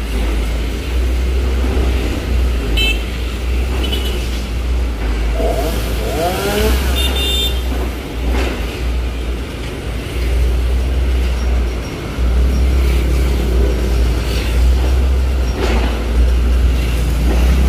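Traffic noise of a busy city street: engines of passing cars and motorbikes over a deep, continuous rumble, with one engine revving up about six seconds in.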